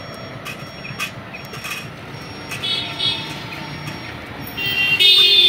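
Street traffic noise with a vehicle horn blaring briefly about halfway through, then again louder near the end, the loudest sound here. A few sharp clicks come in the first two seconds.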